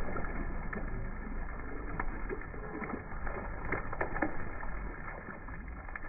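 Water splashing and churning around a swimmer beside a boat, with a cluster of sharp splashy crackles in the middle, over a steady low wind rumble on the microphone.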